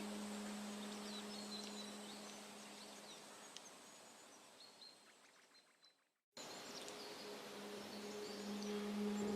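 Outdoor nature ambience: a steady hiss with many small bird chirps and a thin steady high insect-like tone. A low humming drone fades out over the first few seconds. The whole bed fades to silence about six seconds in, then cuts back in abruptly, with the drone returning near the end.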